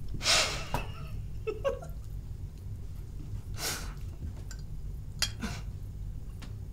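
A few short, breathy, quiet laughs or snorts of amusement, spaced a few seconds apart, with a tiny voiced sound about one and a half seconds in, over a low steady hum.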